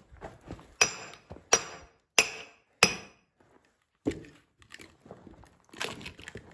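Sledgehammer driving a steel splitting wedge into a large log round: four hard, ringing metal-on-metal blows about two-thirds of a second apart, then a few duller knocks.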